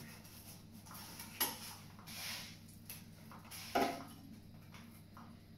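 Large kitchen knife cutting through a baked pizza's crust on an aluminium pizza peel, with two sharp knocks of the blade about a second and a half in and near four seconds. Hail hitting the windows sounds in the background.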